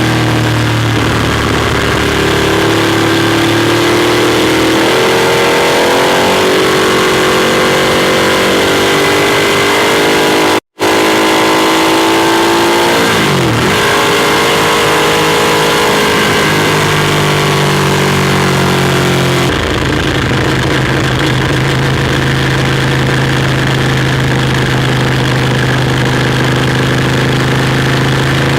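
Ducati Monster 821's 821 cc Testastretta V-twin engine on the road, its revs rising and falling with the throttle, with a deep dip and climb in pitch about halfway through. It cuts out for an instant about ten seconds in, where clips are joined, and runs at a steadier note in the last third.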